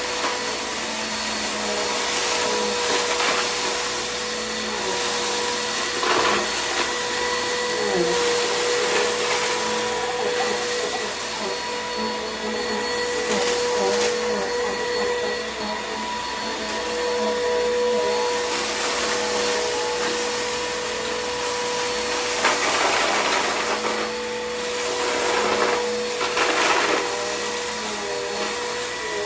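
Vacuum cleaner running steadily on a rug, its motor giving a steady whine over the rush of suction, as it picks up crunched food crumbs. Several short surges of hiss come through as it works.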